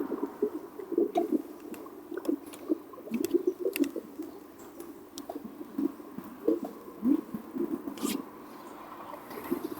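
FurReal Friends Dazzlin' Dimples toy dolphin making its electronic sleep-mode sounds: short, irregular low warbles with scattered faint clicks.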